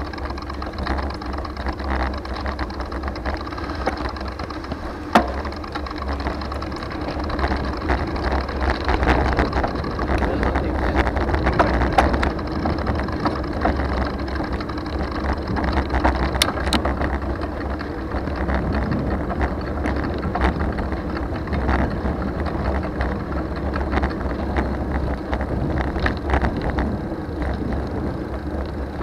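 Riding noise from a 2020 Trek Dual Sport 4 hybrid bicycle: a steady rumble of wind on the microphone over the rolling of the tyres, with a sharp click about five seconds in and a few lighter clicks later.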